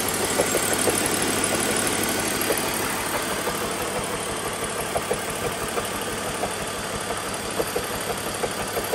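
BMW Z4 3.0's straight-six engine idling unevenly with a misfire, irregular sharp ticks over the steady running noise, a noise that doesn't sound good.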